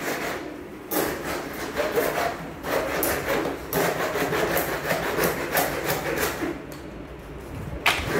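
Hacksaw sawing through a stack of PVC folding-door panels with repeated back-and-forth strokes, trimming the door to height.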